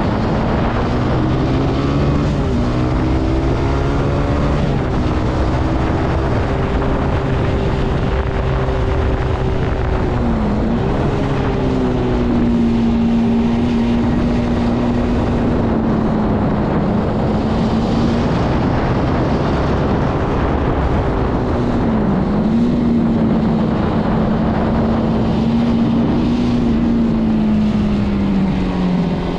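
Zontes C125 motorcycle engine running under way, climbing in pitch through gear changes at first, then holding a steady cruising note. The note dips briefly and picks back up twice, and falls away near the end as the bike slows.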